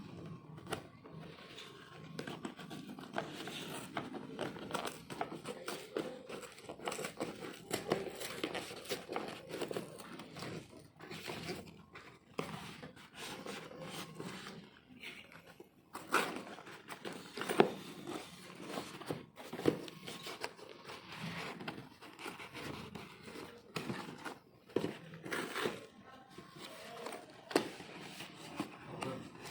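Packaging being handled and opened: plastic and paper crinkling, rustling and tearing, with irregular clicks and taps.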